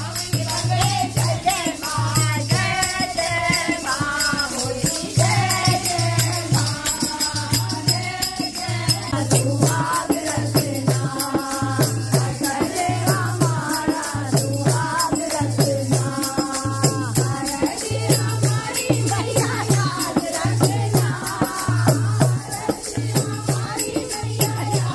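Devotional kirtan: voices singing a Mata bhajan together over a steady hand-drum beat, with a rattle shaken in time throughout.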